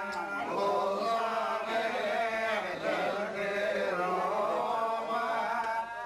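A group of men chanting Hebrew prayers together in the Adeni Jewish tradition, an unaccompanied, continuous sung recitation.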